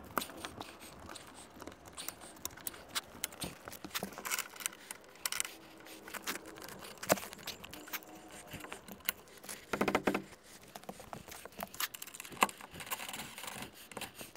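Scattered light metal clicks, clinks and scrapes as a solar panel is set onto aluminium roof rails and its clamps and mounting hardware are handled, with a brief buzzing burst about ten seconds in.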